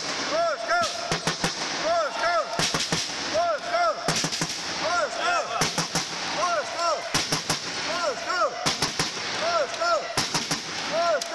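Basketball game on a gym court: a rapid run of short rising-and-falling squeaks, typical of sneakers on the hall floor, mixed with many sharp knocks from the ball bouncing, all echoing in the hall.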